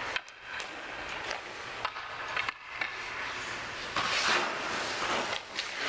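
Ice skate blades scraping and carving on rink ice, with several sharp clicks and knocks of puck and sticks. A longer, louder scrape comes about four seconds in.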